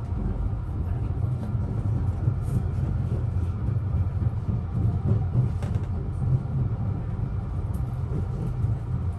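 Steady low rumble of a JR Kyushu 883-series Sonic electric limited express running through the crossover points, heard from inside the train, with a few faint clicks of the wheels over the turnout.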